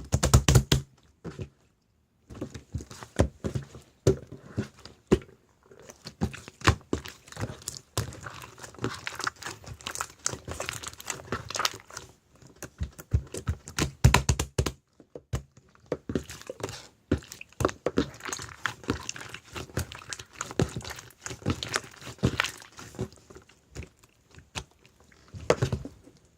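Slime being squished and pressed by hand: a dense run of small sticky clicks and pops, pausing briefly a few times.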